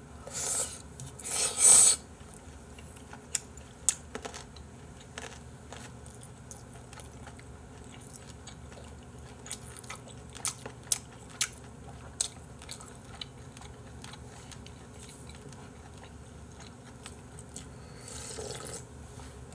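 A person slurping ramen noodles hard, twice, about half a second to two seconds in, then chewing with scattered small clicks. A softer sip of broth straight from the bowl comes near the end.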